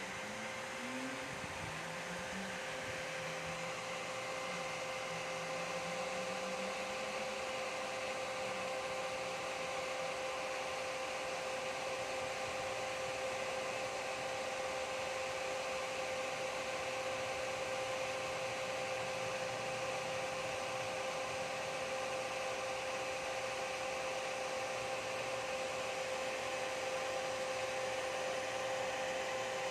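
Dell OptiPlex 3020 desktop's cooling fan running loud: a steady whir with a steady humming tone, growing a little louder over the first few seconds and then holding level.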